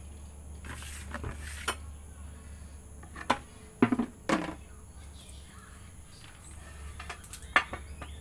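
Light knocks and clacks of a white plastic paint bucket and its lid being handled, the lid fitted and the bucket set down, a handful of separate hits with the loudest cluster about halfway through, over a faint steady low hum.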